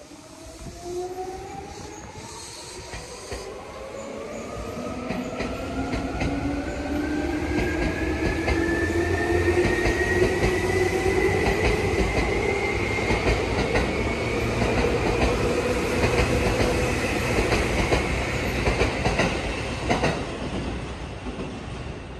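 Seibu New 2000 series electric train accelerating away from a station. The traction-motor whine rises steadily in pitch, with wheels clicking over rail joints. It grows louder over the first several seconds and fades near the end as the last car clears.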